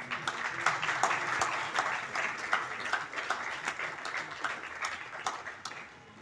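Audience applauding, starting sharply and dying away near the end.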